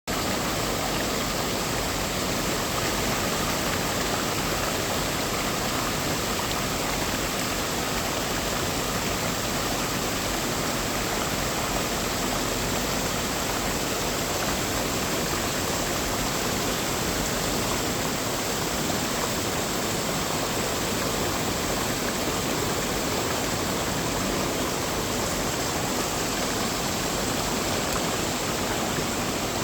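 Mountain stream water rushing over rocks in a steady, unbroken rush.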